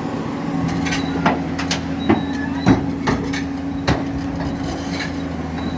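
Excavator engine running steadily, with several sharp knocks from about a second in to about four seconds in.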